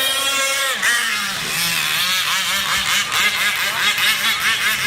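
RC boat motor running and whining, its pitch rising and falling in quick swoops as the throttle is worked, several times a second in the second half.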